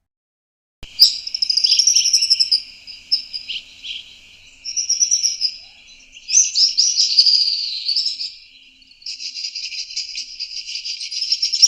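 A southern African bird singing: phrases of high, sliding whistled notes with short pauses between them, then a fast continuous trill from about nine seconds in.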